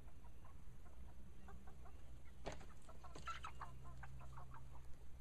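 A small flock of backyard hens clucking softly, with a run of short clucks in the middle.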